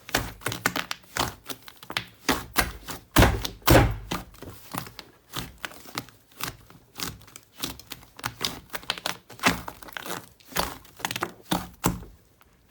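Slime being squeezed and pressed by hand close to the microphone: a quick irregular run of crackles, pops and soft clicks, with two louder thuds a little over three seconds in.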